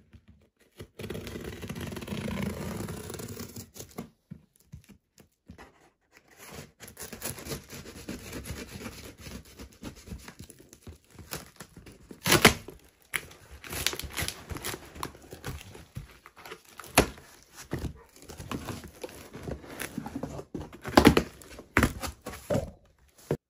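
Scissors cutting and tearing the packing tape along the seam of a cardboard box: a long run of crackling and ripping with several sharp, louder rips, the tape being a little hard to get undone. The cardboard flaps are pulled open near the end.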